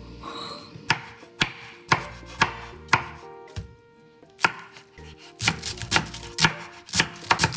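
Kitchen knife chopping broccoli and cabbage on a wooden cutting board, each cut ending in a sharp knock of the blade on the board. The cuts come about two a second, pause briefly midway, then quicken near the end.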